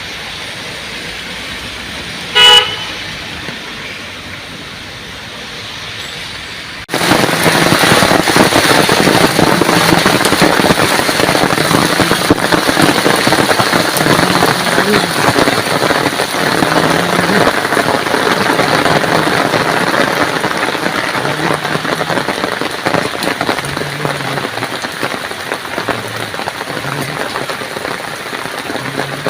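A car horn honks once, briefly, over street traffic. About seven seconds in, the sound cuts abruptly to heavy rain pattering densely on surfaces, which continues and slowly eases.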